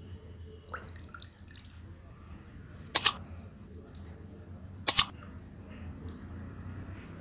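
Two sharp double clicks, each two quick snaps close together, about two seconds apart, over faint room noise with a few light ticks.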